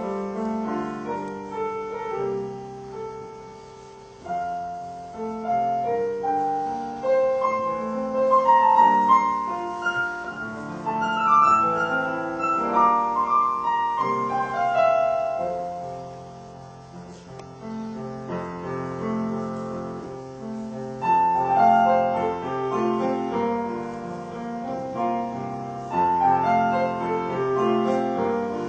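Solo piano playing a slow, melodic piece in phrases that swell and fade, softest about four seconds in and again a little past halfway.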